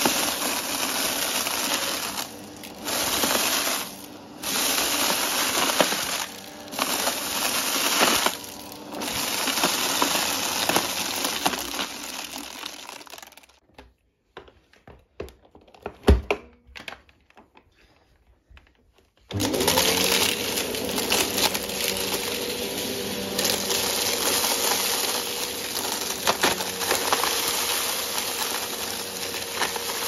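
Hoover Breeze Evo upright vacuum running over a carpet, sucking up a mixed mess of confetti, sequins, beads and coins that rattle and crackle through it, its noise rising and falling with the forward and back passes. About 13 seconds in it goes quiet for several seconds, broken only by a few knocks and one sharp thud, then starts up again and runs with more crackling pickup.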